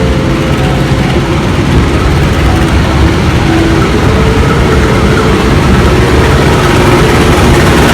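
Diesel locomotive engine running with a steady heavy rumble, growing slightly louder toward the end.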